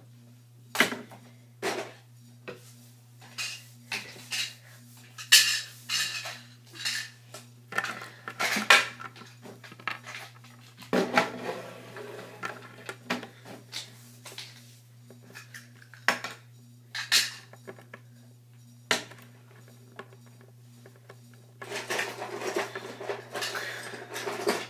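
Small plastic toy pieces clacking and knocking on a tabletop as they are set down and moved around by hand, with a few longer stretches of handling and rustling. A steady low hum runs underneath.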